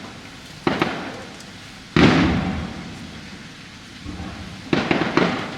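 Fireworks bursting: about five booms at uneven intervals, the loudest about two seconds in, each fading away over a second or so.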